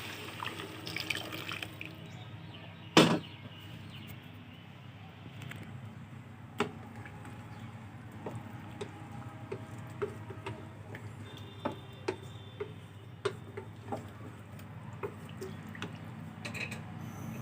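Rice and mung-masoor dal khichuri coming to the boil in the pot after boiling water has been poured in, with scattered small pops of bursting bubbles. One sharp knock about three seconds in.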